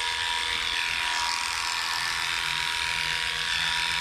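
Cordless dog-grooming clipper fitted with a #7 blade, running at a steady hum as it cuts through a Shih Tzu's coat.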